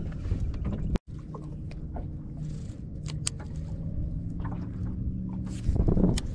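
Steady low motor hum from the boat, with a few sharp clicks from a baitcasting reel. A louder rush of noise about six seconds in as the rod is swung forward in a cast.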